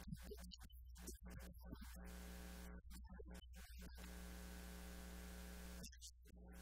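Faint, steady electrical mains hum with hiss, broken several times by short dropouts that carry faint traces of a man's voice.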